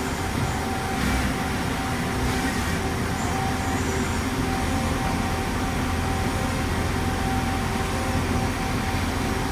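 DMG MORI NLX 2000 CNC turning center running a program with its spindle turning: a steady mechanical running noise with a constant whine and a low hum.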